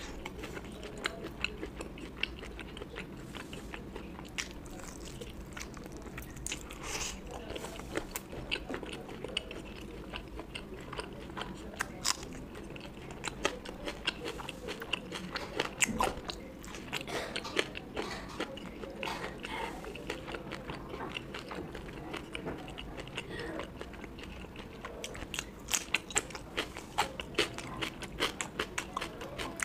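Close-miked chewing and biting of a person eating a curry-and-rice meal: wet mouth sounds and many short, sharp clicks in irregular runs, thickest near the end.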